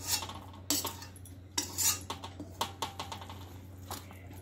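A perforated metal spoon scraping and clinking against a kadhai and a steel bowl while spice masala is stirred into cut mango pieces for pickle, in irregular clinks and scrapes.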